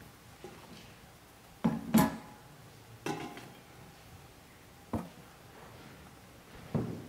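Communion ware being handled and set down on the altar: about five separate knocks and clinks, a few with a short ring, the loudest pair about two seconds in.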